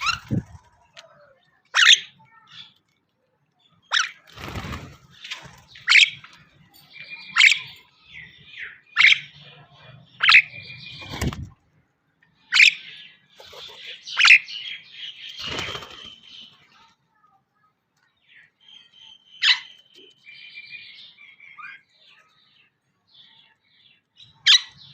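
Birds calling in short, shrill chirps, one every second or two, with a few bursts of wing flapping or rustling in between; the calls grow sparser and quieter in the second half.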